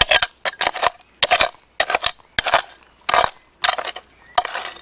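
Small metal hand hoe chopping and scraping into stony earth: a quick series of sharp strikes, about two a second, with a gritty scrape and the odd clink of the blade on stones.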